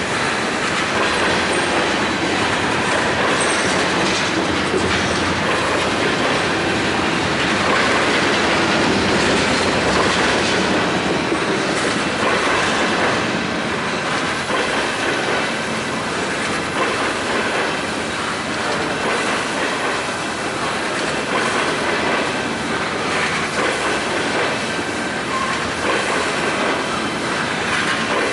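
A train rolling steadily along the rails, with a loud continuous clatter of wheels on track.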